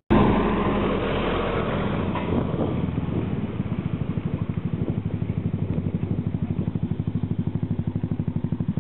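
Motor scooter engine running as the scooter rides up toward the camera, with a regular pulsing of about seven beats a second that sets in about three and a half seconds in.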